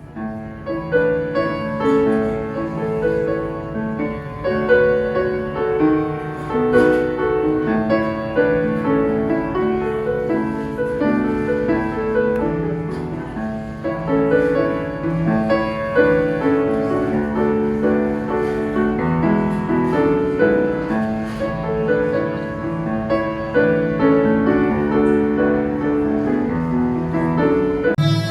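Instrumental music led by a piano or keyboard, a flowing melody of even notes over a held low tone.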